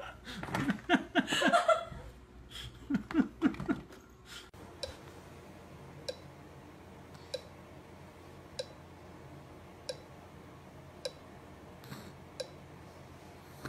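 A young child laughing in quick ha-ha bursts, one run at the start and another about three seconds in. Then a quiet room with a soft click repeating evenly about every second and a quarter.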